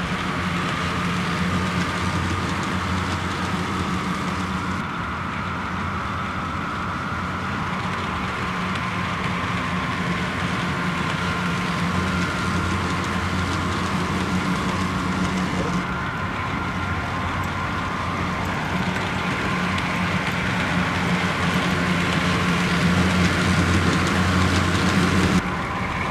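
HO scale model passenger train running along its track, a steady hum with rolling wheel noise. The sound shifts slightly about five seconds in, around sixteen seconds, and just before the end.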